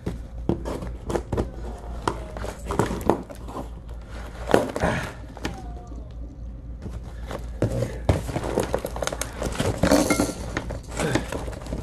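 Irregular knocks and thuds of a boxed car door kit being unpacked and its heavy parts handled, over a steady low hum.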